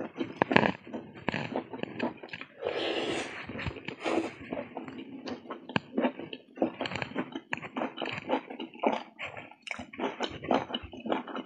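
Close-miked chewing and mouth noises of a person eating by hand, with many quick wet smacks and clicks throughout.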